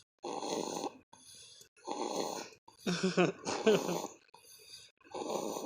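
Sleeping baby snoring hard: a rasping snore on each breath, about every second and a half, with a louder, longer snore carrying a pitched grunt about three seconds in.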